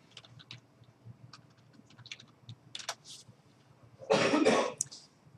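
Light, scattered computer-keyboard key taps as a word is typed, then a loud double cough about four seconds in.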